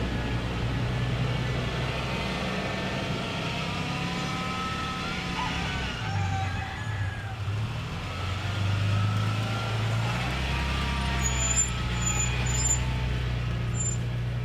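Pickup truck (bakkie) engine and road noise while driving, a steady low hum whose pitch shifts about six seconds in and shifts back near ten seconds.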